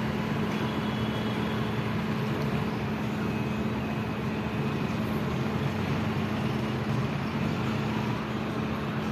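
Steady street background noise: a constant low hum with an even hiss over it, no distinct events.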